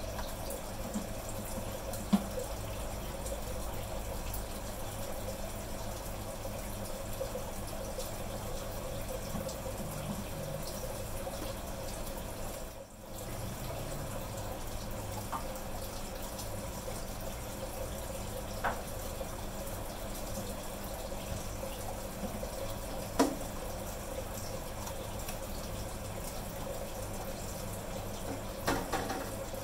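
Water running and trickling steadily over a low hum, with a few short plastic knocks, the loudest cluster near the end.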